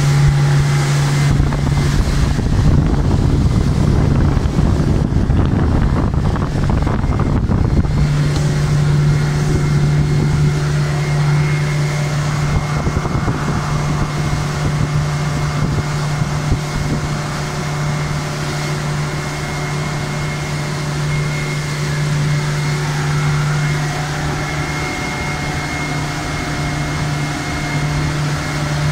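Suzuki 90 hp outboard motor driving a small motorboat at steady planing speed, a constant engine drone with the rush of water. For about the first eight seconds, wind buffets the microphone heavily.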